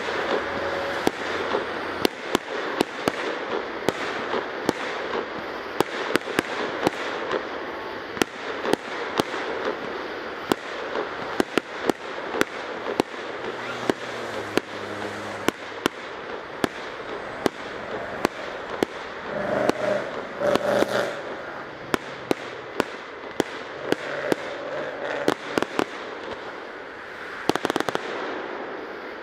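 Aerial fireworks display: a steady run of sharp bangs from bursting shells, at times several a second, over a continuous wash of noise.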